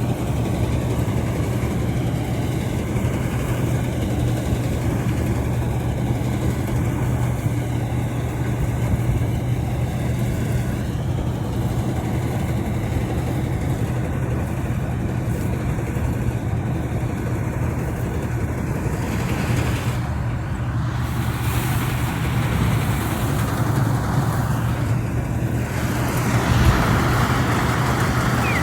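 Engine of a rice-harvesting machine running steadily under load, a constant low hum.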